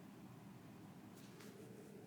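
Near silence: faint steady background noise, with a couple of faint ticks a little past the middle.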